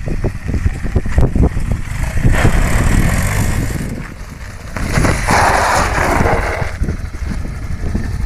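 Honda CRF250L's single-cylinder four-stroke engine running as the bike is ridden, louder in two stretches, about two seconds in and again at five seconds.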